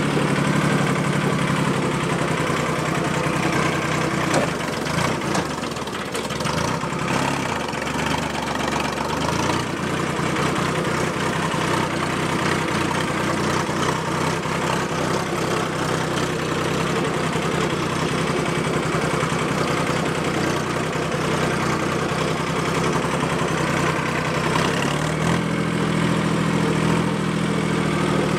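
Escort tractor's diesel engine running steadily as the tractor drives along, its pitch shifting slightly up near the end.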